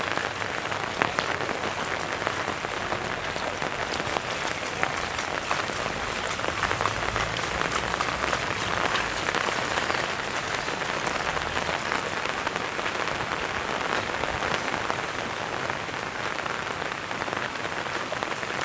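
Steady rain falling, a constant hiss with many individual drops hitting close by.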